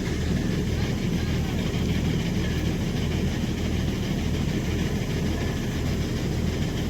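Tractor engine running steadily, a low even drone.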